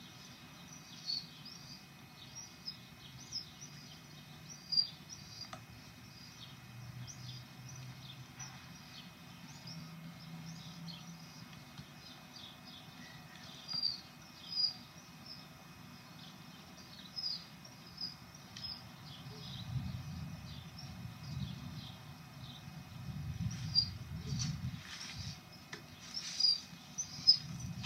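Small birds chirping in short, scattered high notes, over a low steady rumble of background noise. A few louder knocks come near the end.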